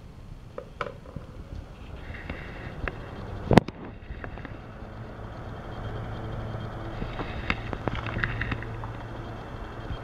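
Homemade fan with a 12 V DC motor switched on at its top speed: a sharp click about three and a half seconds in, then the motor and blades run up to a steady hum, with scattered light clicks.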